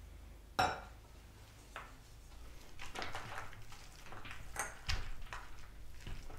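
Wooden spatula stirring ground meat and ice cubes in a stainless steel bowl, ice and spatula clinking and scraping against the metal in an irregular run of clicks. A single sharp knock comes about half a second in.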